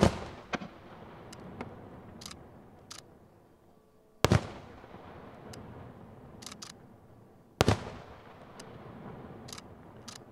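Aerial firework shells bursting: three loud bangs about three to four seconds apart, each followed by a long rolling echo. Smaller sharp pops and crackles come in between.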